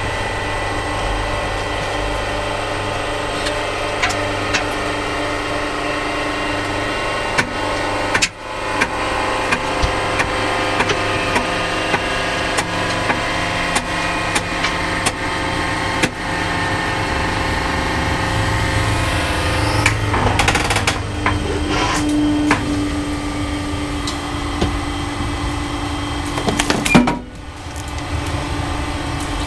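A hydraulic press's pump motor runs steadily under load as the press crushes a large wax candle. Scattered sharp cracks and snaps come from the wax breaking apart. The sound dips briefly twice, about eight seconds in and near the end.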